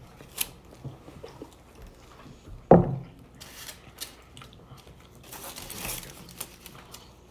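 Close-up eating noises: burritos handled in their foil and paper wrappers, with crinkling and small clicks. One short thump about three seconds in is the loudest sound.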